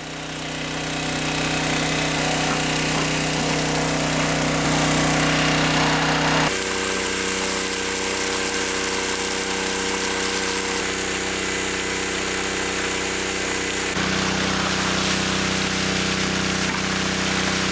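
Predator 212cc single-cylinder gasoline engine running a semi-trash water pump at steady speed, with the hiss of a heavy water jet from the discharge hose. It fades in at the start, and the engine note shifts abruptly about six seconds in and again about fourteen seconds in.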